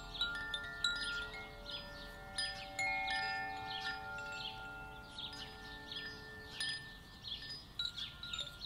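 Koshi chimes ringing: light random strikes, two or three a second, each leaving a clear sustained tone, so that many pitches overlap in a continuous shimmer.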